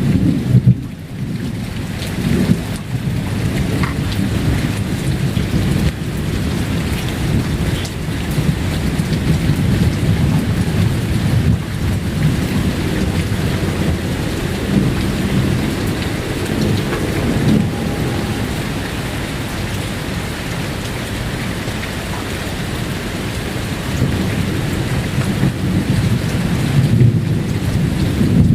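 Thunderstorm: steady rain with a continuous low rumble of thunder that dips briefly about a second in.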